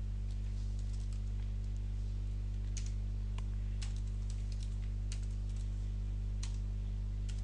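Computer keyboard keys clicking in short irregular runs of typing, over a steady low hum.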